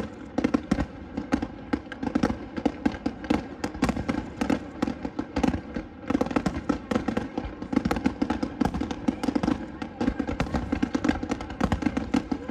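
Finale fireworks: rapid, overlapping aerial shell bursts and crackles, many per second, with a brief lull about halfway through.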